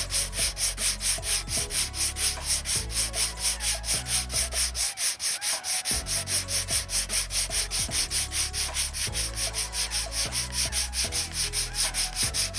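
Sandpaper on a hand sanding block rubbing back and forth over Bondo body filler on a car panel, in fast, even strokes of about five a second, as the filler is flattened before priming.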